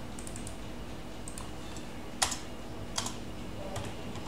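A few separate keystrokes on a computer keyboard, the sharpest a little after two seconds in, over a steady low hum.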